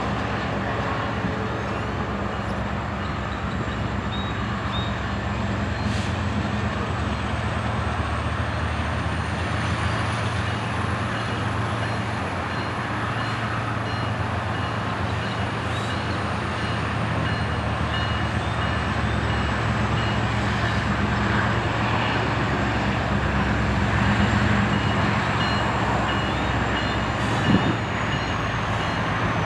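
Diesel-electric freight locomotives, KCSM EMD SD70ACe units, running with a steady low engine drone over the rumble of the train. A faint high whine rises and falls slowly, and a short knock is heard near the end.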